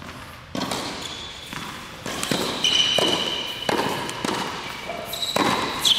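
Tennis rally on an indoor hard court: the serve is struck about half a second in, followed by several more sharp racket hits and ball bounces echoing in the hall, with a few short high squeaks between them.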